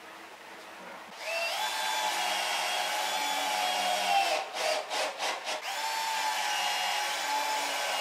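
Power drill running. It spins up about a second in and runs steadily for about three seconds, is pulsed on and off a few times, then runs steadily again.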